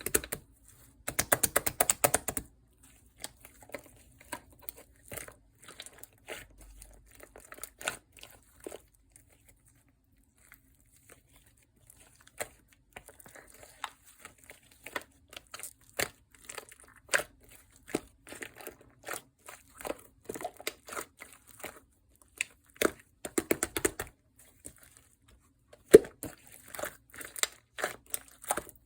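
Hands playing with a black slime, pressing and poking it: irregular sticky clicks, crackles and small pops, with a dense run about a second in and busier clusters in the last third.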